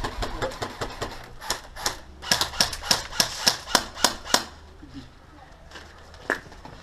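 Airsoft guns firing: sharp snapping shots, scattered at first, then a quick run of about four a second from about two to four and a half seconds in, and one more shot near the end.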